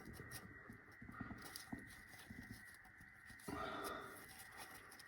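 Faint, scattered clicks and knocks of hand tools working on the engine, with a brief scraping rustle about three and a half seconds in.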